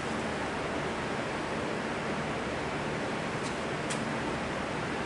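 Window air conditioner running: a steady, even hiss with a low hum under it. Two faint clicks come a little past three seconds in.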